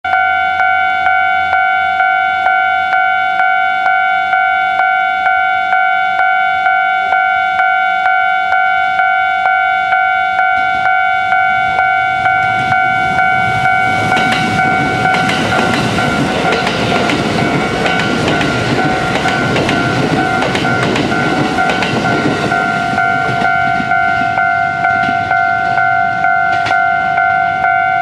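Japanese level-crossing alarm ringing steadily, about two strikes a second. A Kintetsu express train runs through the crossing, its wheels and rails rising from about twelve seconds in, loudest in the middle and fading away by about twenty-four seconds.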